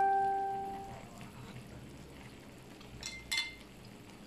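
Tableware clinking during a meal: a ringing clink fades over about a second, then two lighter, higher clinks come about three seconds in.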